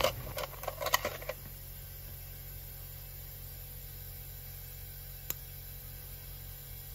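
Light metallic clicks and taps of a steel pick and a valve spring compressor against the rocker gear and spring retainer, a handful in the first second, then a low steady hum with a single tick about five seconds in.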